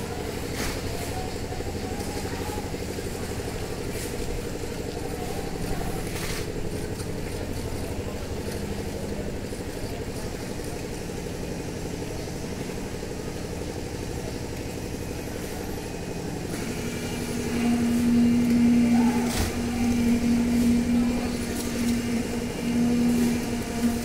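A small engine runs steadily at a constant pitch. About two-thirds of the way in, a louder steady hum joins it and the sound grows louder. There are a few sharp knocks.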